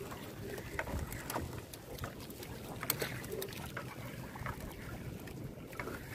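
Wet gill net being pulled by hand into an outrigger boat: water dripping and splashing off the mesh, with scattered light clicks and taps of net and fish against the hull over a low rumble of wind and waves. One sharper click comes about three seconds in.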